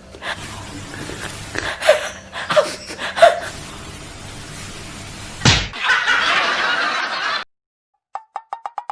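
A single loud hand slap about five and a half seconds in. A rushing hiss follows and cuts off suddenly. Near the end comes a quick run of short ticking tones.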